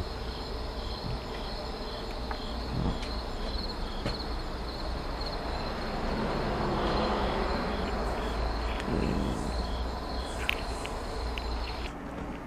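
Crickets chirping in a steady high trill over a low steady rumble; the chirping cuts off abruptly near the end.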